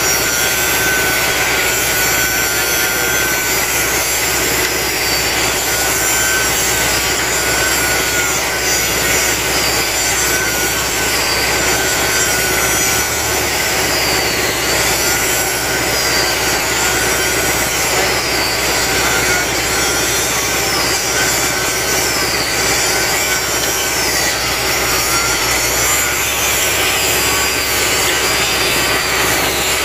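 Case backhoe loader's diesel engine running steadily under load as it holds up a heavy steel weighbridge plate. A high whine over it wavers up and down every second or two.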